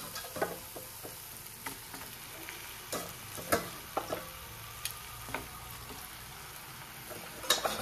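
Onion-tomato masala sizzling in a cast iron kadai, with scattered clicks and knocks as raw chicken pieces are dropped into the pan. The louder knocks come near the middle and near the end.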